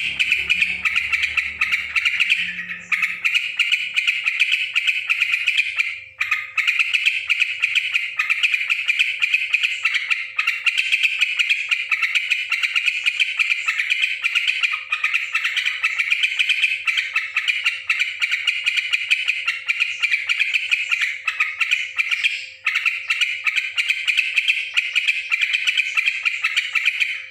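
Yellow-vented bulbul (trucukan) singing in a busy, noisy, non-stop stream of rapid chattering calls, broken by a few short pauses.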